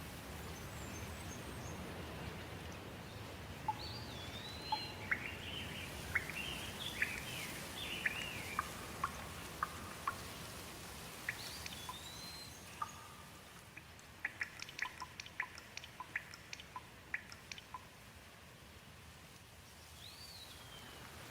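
Songbirds singing over a steady hiss of light rain. Swooping, whistled phrases come in the first half, then a quick run of short sharp ticks, and one more swooping note near the end.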